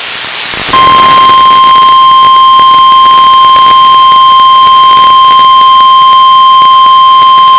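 Radio static hiss, then less than a second in a loud, steady single-pitch alert tone starts and holds without a break. It is the NOAA Weather Radio 1050 Hz warning alarm tone that comes before a National Weather Service tornado warning.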